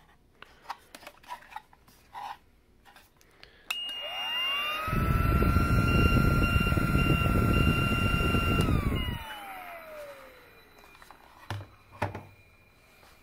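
Battery-powered respirator blower test-run on its newly fitted battery pack: the fan motor spins up with a rising whine, runs steadily for about five seconds with a loud rush of air, then winds down with a falling whine. A few clicks of the plastic housing being handled near the end.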